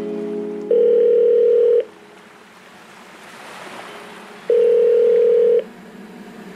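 Background music of the electronic kind: a long held synth tone, then a soft swelling wash, then a second held tone about a second long.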